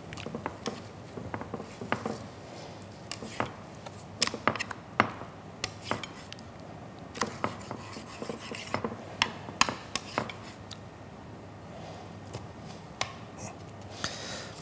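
Metal kitchen tongs clicking and knocking against glass and ceramic dishes as breaded chicken escalopes are lifted and moved: a scatter of irregular sharp, light clicks and taps.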